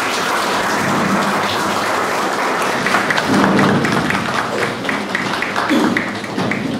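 An audience applauding, many hands clapping steadily, easing off near the end.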